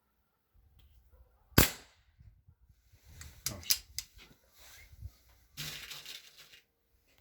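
Artemis CP1-M CO2 air pistol firing a single shot, a sharp crack about one and a half seconds in, followed by several smaller mechanical clicks and some rustling handling noise.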